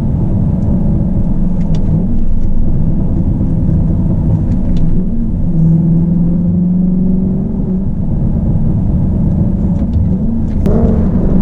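Audi B6 S4's 4.2-litre V8 running through a muffler-deleted MagnaFlow exhaust while driving, a deep rumble with burbles from a Jackal stage 1 tune's burble mode. Near the end the engine note rises as the car accelerates.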